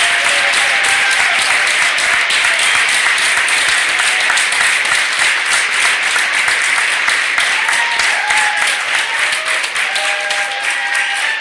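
An audience of schoolchildren applauding steadily, with a few voices calling out over the clapping.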